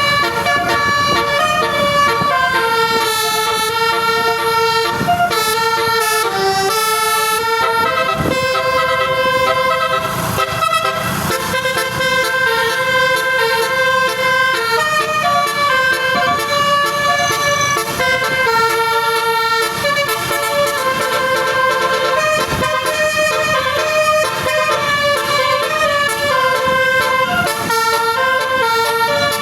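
Bus 'telolet basuri' musical horn playing a tune, a string of held notes stepping up and down in pitch without a break.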